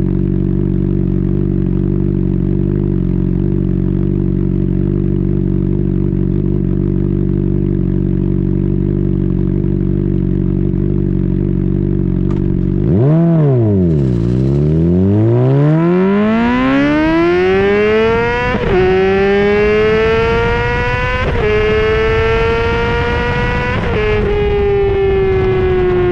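2010 Honda CBR600RR inline-four with a Yoshimura slip-on exhaust idling steadily, then revved once about halfway through and pulling away hard, the note climbing through the gears with three quick upshifts before the throttle eases off near the end.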